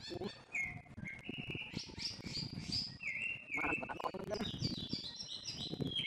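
A bird tangled in a mist net calls over and over, about two shrill, short calls a second, each dropping in pitch at its end, while the net rustles as it is handled.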